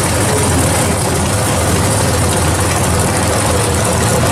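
Two first-generation Chevrolet Camaro drag-race cars' V8 engines idling together at the starting line before a run, a loud, steady low rumble with no revving.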